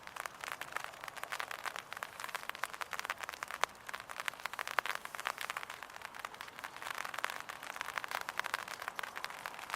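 Light rain pattering on an umbrella held over the camera: a dense, irregular crackle of drop ticks.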